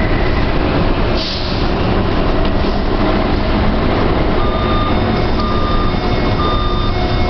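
Taipei Metro Siemens C321 train standing at a platform with its doors open, a steady noise of the train and station throughout. From about four seconds in, a beep repeats roughly once a second: the door-closing warning.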